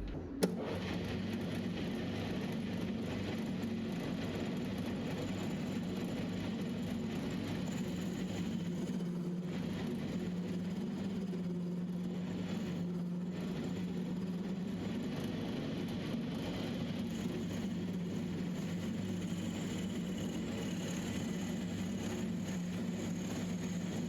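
Metal lathe running steadily while machining a steel shaft, a sharp click about half a second in and then an even motor hum.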